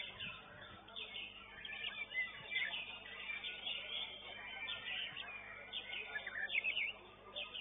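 Caged contest songbirds singing at once: a dense run of quick chirps and short whistles.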